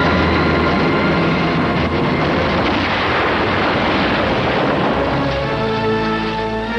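Armored car exploding: a sudden blast that carries on as a dense, rumbling roar for about five seconds. Dramatic music score rises over the tail of it near the end.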